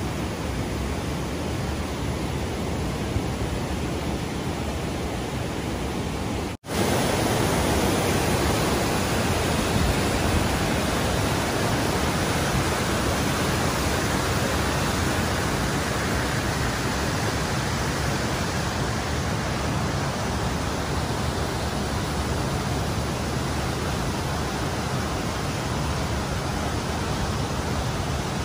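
Blakiston Falls and its creek: a steady rush of falling water with no breaks, a little louder after a cut about six and a half seconds in.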